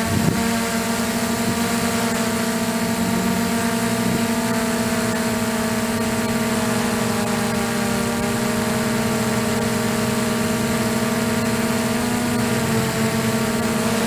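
Quadcopter's electric motors and propellers running in flight, a steady multi-tone hum from the onboard camera with rushing air noise underneath; the pitch shifts a little near the start and again near the end as the throttle changes.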